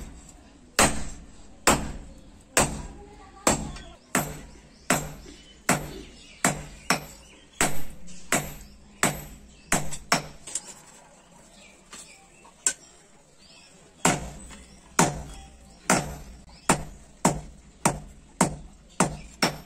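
Hand hammer striking red-hot steel on a small anvil while forging a billhook blade, each blow with a short metallic ring. The blows come a little over one a second, pause for about three seconds with a single blow, then resume quicker at about two a second.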